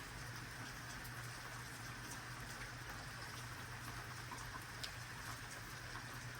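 Steady rain falling, with a few louder drops ticking on a nearby surface.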